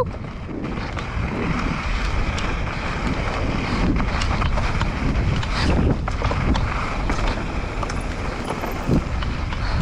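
Mountain bike descending a dirt trail at speed: a steady rush of wind over the microphone and tyres rolling on dirt, with scattered knocks and rattles from the bike hitting bumps.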